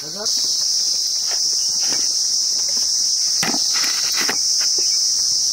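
A steady, high-pitched chorus of insects chirring without a break, louder from about a third of a second in. A few soft rustles or knocks sound over it around three and a half to four seconds in.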